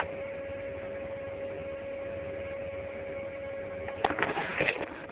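A steady electrical hum over low hiss. About four seconds in, a sudden burst of irregular crackling noise lasts under a second.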